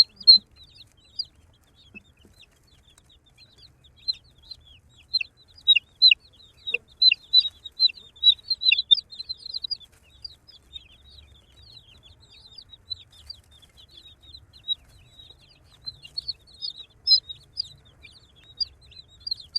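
Baby chicks peeping: many short, high chirps that slide down in pitch, coming thick and fast for the first half, thinning out in the middle, and picking up again near the end.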